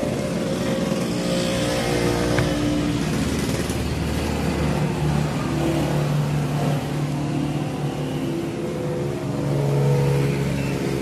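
An engine running steadily, its pitch shifting a few times and swelling slightly near the end.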